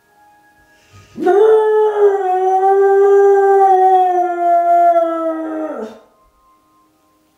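A husky-mix dog gives one long howl about a second in, sliding up at the start, held steady for several seconds, then dropping away. It is howling along with the town's evening chime, whose tones sound faintly before and after the howl.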